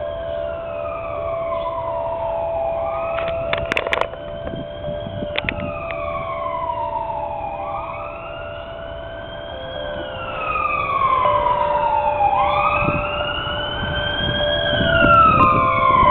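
Several emergency vehicle sirens wail at once, out of step with each other, each rising and falling in pitch every few seconds. A steady tone runs beneath them, and a low rumble comes in near the end.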